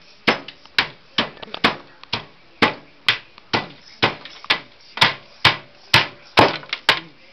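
A hammer striking overcooked pizza rolls that have baked hard, about two sharp blows a second in a steady run, with a few lighter extra taps between.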